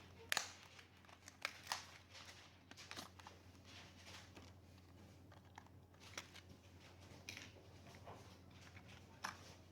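Quiet handling sounds: scattered sharp clicks and taps with light rustling. The loudest click comes about a third of a second in and another just under two seconds in.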